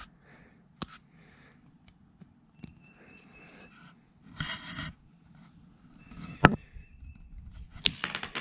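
Handling noise from a small puck-shaped Bluetooth speaker being turned over in the hands and tried for power: scattered light clicks and rubbing, a short scraping burst about halfway through, and a sharp click about two-thirds in.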